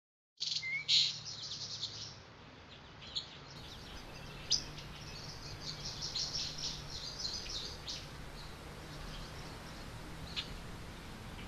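Songbirds chirping and twittering in many short, overlapping calls, starting abruptly about half a second in, over a faint steady low hum.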